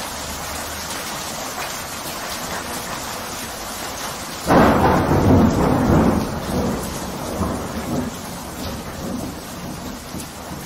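Steady rain with a sudden loud clap of thunder about four and a half seconds in, rumbling and fading over the next few seconds.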